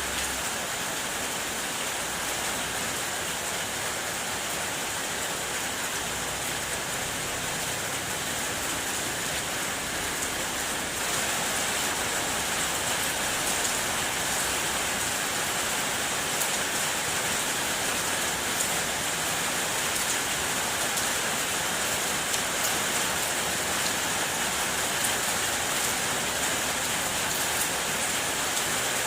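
Steady rain falling on a car's body, a dense even patter that grows a little louder about eleven seconds in.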